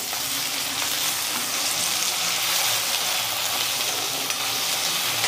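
Chopped tomatoes, onions and green chillies sizzling steadily in hot oil in a kadai, stirred with a steel ladle.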